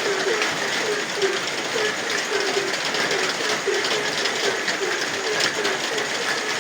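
Frogs croaking in an even, steady rhythm, about two to three short calls a second, over the continuous hiss of falling rain.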